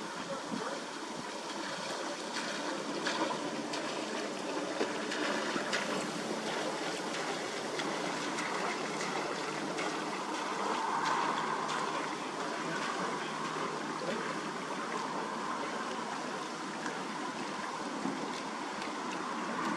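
A boat passing on the river: a steady wash of moving water with faint engine noise, swelling a little about halfway through.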